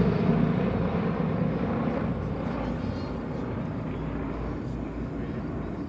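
Formation of five North American SNJ/T-6 Texans passing, the drone of their Pratt & Whitney R-1340 radial engines and propellers steadily fading as they move away.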